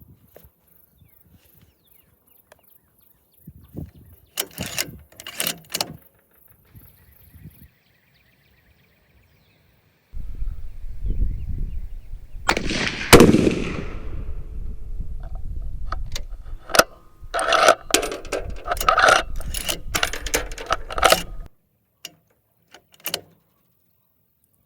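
A single unsuppressed shot from a 6.5 Creedmoor Ruger Precision Rifle, very loud and sharp, about 13 seconds in. It follows scattered handling clicks and is followed by a quick run of metallic clicks and clatter.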